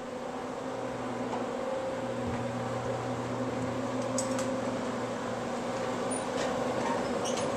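Steady hum of cinema projection-booth equipment, fans and projectors running with a low electrical drone, growing louder as the booth is entered, with a few light clicks.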